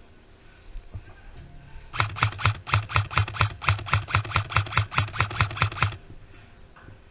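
Airsoft rifle firing a rapid string of about twenty shots, roughly six a second, for about four seconds.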